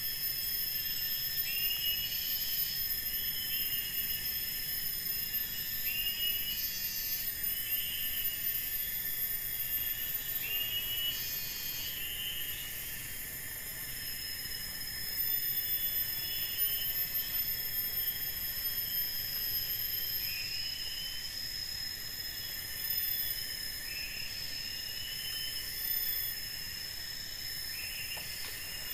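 Forest insects droning in a steady high-pitched whine, with a short chirping call repeated about once a second. The chirps are strongest in the first dozen seconds, fade, and come back near the end.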